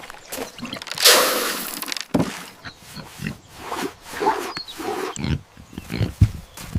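An animal grunting in short low bursts, with a loud rasping noisy burst about a second in and scattered knocks and rustles.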